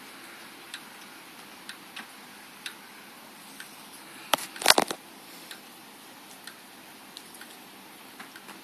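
Faint sharp ticks, roughly one a second, over a steady hiss, with a brief cluster of much louder clicks and crackles about halfway through.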